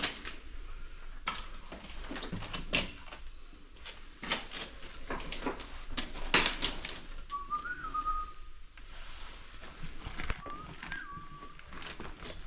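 A person whistling two short phrases a few seconds apart, each sliding up and then holding a note, over scattered short knocks and clicks.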